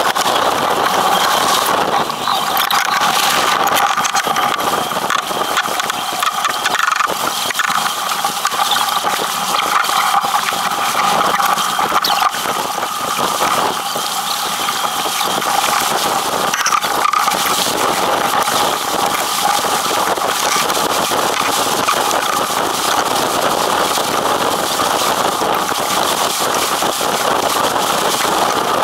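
Steady rush of wind buffeting the microphone and water streaming past the hull of an Impala 28 sailing yacht heeled over under sail.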